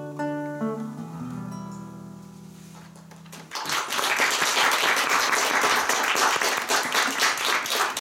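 Acoustic guitar playing the last notes of a song, the final chord ringing out and fading. About three and a half seconds in, an audience breaks into applause, louder than the guitar.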